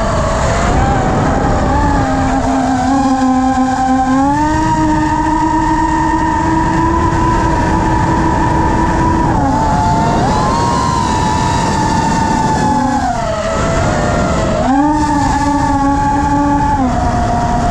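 FPV quadcopter's electric motors and propellers whining close to the onboard camera, over a constant rush of air. The pitch climbs about four seconds in, holds, sags briefly, drops away around two-thirds through, then jumps back up before falling again near the end as the throttle changes.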